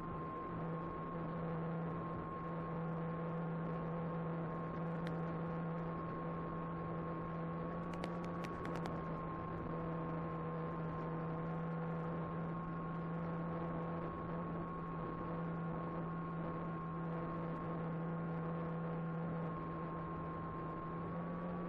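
Electric motor and propeller of an Apprentice 15e RC airplane running at a steady cruise throttle, a constant droning hum with a whining tone over it, picked up by the onboard camera. The pitch rises a little near the end as the throttle is opened.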